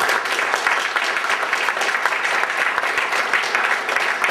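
Audience applauding: many hands clapping together in steady, loud applause.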